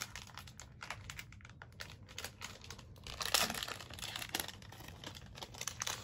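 Plastic trading-card pack wrapper crinkling and rustling in irregular small crackles and clicks, louder for a moment about three seconds in.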